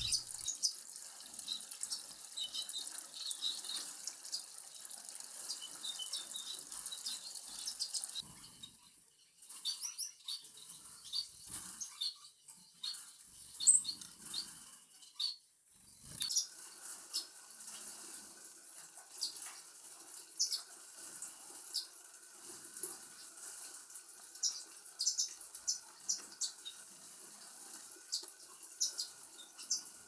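Gouldian finches chirping in an aviary: many short, high calls scattered throughout over a faint steady hiss.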